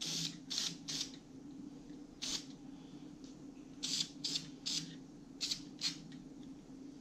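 Aerosol spray-paint can, metallic gold, sprayed in about nine short spurts of hiss, one after another, to blend paint onto a steel sign. A steady low hum runs underneath.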